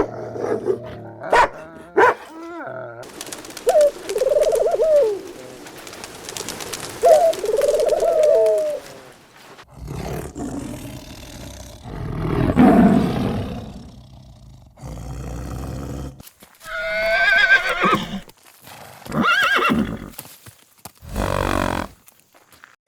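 Farm animals calling in a run of separate short clips: a few short calls, a long low call in the middle, then several higher, wavering calls near the end.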